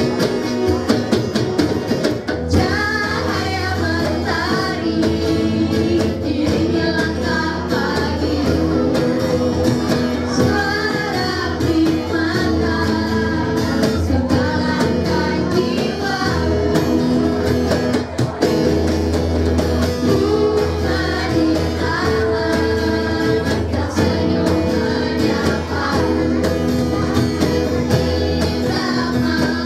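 A small group of girls singing together into microphones through a PA, with electric and acoustic guitar and cajon accompaniment; the voices come in about two seconds in.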